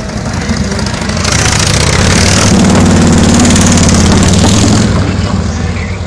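Harley-Davidson police motorcycle engines running loud with a deep, steady note. The sound swells about a second in and eases off near the end.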